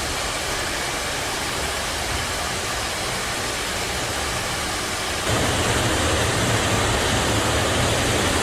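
Steady rushing noise of a fast-moving mudslide torrent, growing louder with a deeper rumble about five seconds in.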